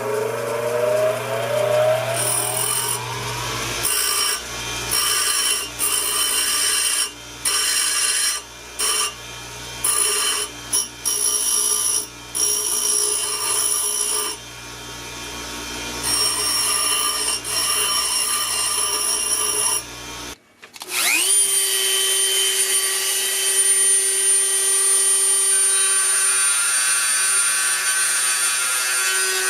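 Electric grinder smoothing the edges of a forged quarter-inch steel bracelet, the motor whine coming up to speed and then grinding with several short breaks. About two-thirds of the way through it stops, then the grinder spins up again and runs at a steady high whine.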